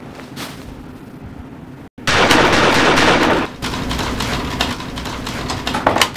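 A sudden loud burst of gunfire noise, after a split second of dead silence, runs for about a second and a half and gives way to a rapid crackle of shots.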